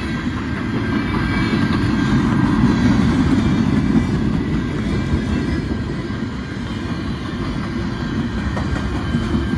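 CN freight train's flatcars rolling past close by: a steady rumble of steel wheels on the rails, with some clickety-clack over the rail joints, a little louder a few seconds in.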